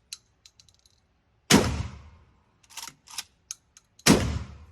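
Two gunshots about two and a half seconds apart, each followed by a fading echo. Short mechanical clacks come between the shots, the gun's action being worked.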